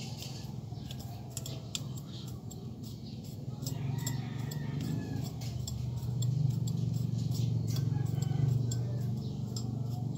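Plastic comb drawn through long wet hair, making a run of quick, irregular clicks and scratches. Under it a low hum swells about six seconds in.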